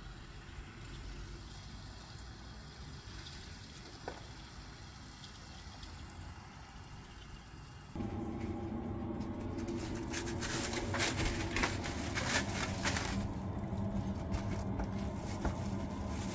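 Faint outdoor ambience, then, after a cut about halfway through, a steady low hum with crackly rustling as a cloth towel and plastic wrap are pulled off a glass bowl of risen bread dough.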